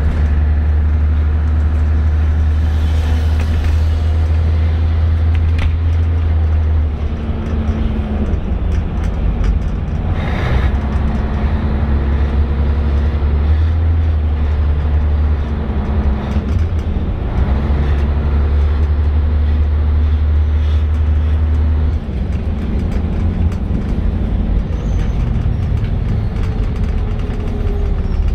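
Scania L113 city bus's diesel engine and drivetrain heard from inside the cabin while driving. There is a deep steady drone, and the engine note rises and drops several times as the bus accelerates and changes gear.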